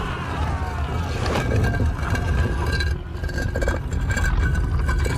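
A heavy, steady low rumble with scattered clicks, and a thin high tone held over it from about one and a half seconds in to near the end.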